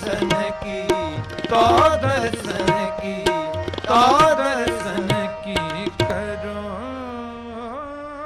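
Harmonium and tabla playing an instrumental passage of kirtan in Raag Tilang. The tabla strokes stop about six seconds in, and the harmonium holds its notes as the sound fades.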